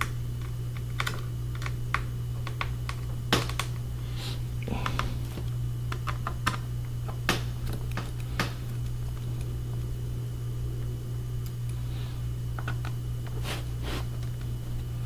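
Irregular light clicks and taps as a Phillips screwdriver works the screws on the underside of a laptop, with a few sharper knocks, over a steady low hum.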